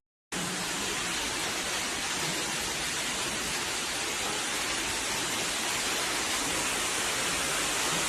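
Loud, steady rush of water, an even hiss with no distinct events, that starts abruptly about a third of a second in.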